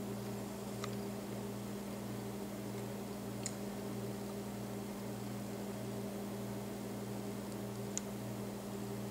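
A steady low machine hum with an even hiss and no animal calls. Three faint, very short high ticks sound about a second in, midway, and near the end.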